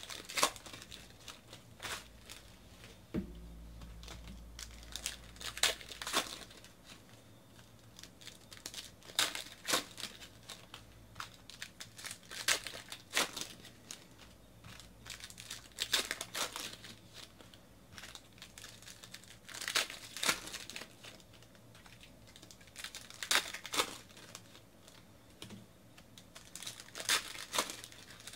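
Foil trading-card pack wrappers crinkling in short, irregular bursts as packs are torn open and handled.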